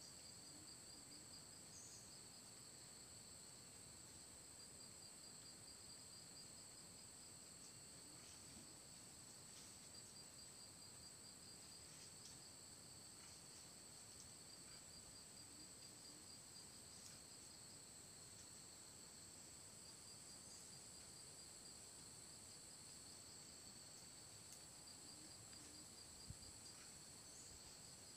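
Faint, steady chorus of insects such as crickets: two continuous high-pitched drones, one with a fast, even pulse, with a few faint short chirps over them.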